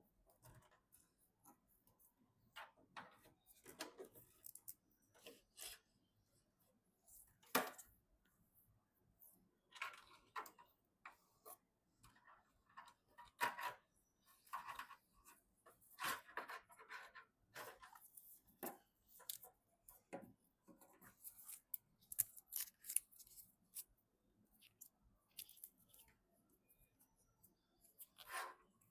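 Hands handling PC parts and packaging: scattered soft clicks, rustles and scrapes, irregular and fairly quiet, with a sharper click about seven and a half seconds in.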